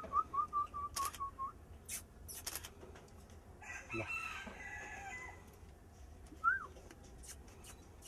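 Birds calling: a quick run of short whistled notes, about four a second, dies away after a second and a half. A few sharp clicks follow, then a longer hoarse call lasting over a second about four seconds in, and a single rising whistle near the end.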